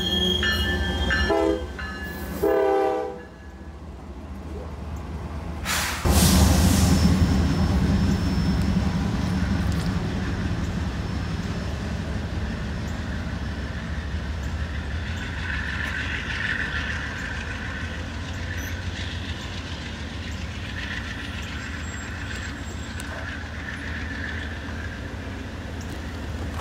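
Train horn blowing, cutting off about a second and a half in, then a second short blast. About six seconds in a train passes close with a sudden loud rush, followed by a steady rumble of wheels on rail that slowly fades. A faint high squeal comes and goes in the second half.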